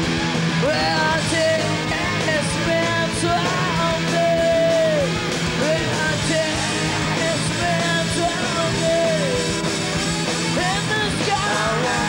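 Punk rock band playing live: distorted electric guitars, bass and drums, with a woman singing over them and holding several long notes.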